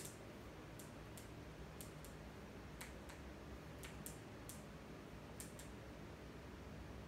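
Faint, scattered sharp clicks, about a dozen and some in quick pairs, from a click-type torque wrench and its ratchet as nuts on an air-cooled VW engine case are tightened to 27 foot-pounds.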